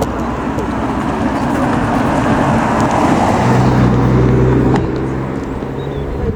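A motor vehicle driving past close by, its engine and tyre noise swelling to a peak about three to five seconds in and then easing off.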